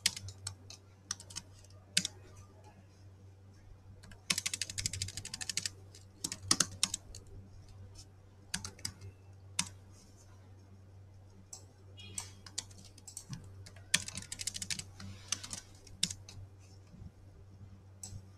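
Typing on a computer keyboard in several quick bursts, with scattered single clicks between them, over a low steady hum.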